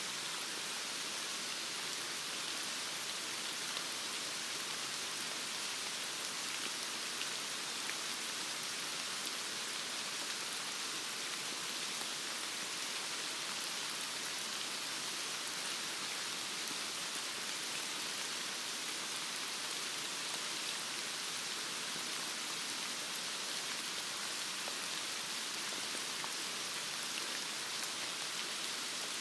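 Heavy rain falling steadily: an even hiss with fine drop patter.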